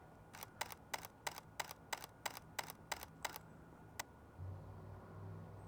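Camera shutter firing in a continuous burst, about three frames a second for some three seconds, then one more single shot.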